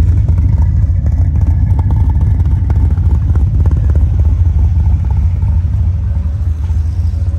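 Turbocharged LS V8 in a BMW E36 idling steadily with its electric exhaust cutout closed, so the exhaust goes through the 3-inch muffler: a deep, even note, significantly quieter than with the cutout open.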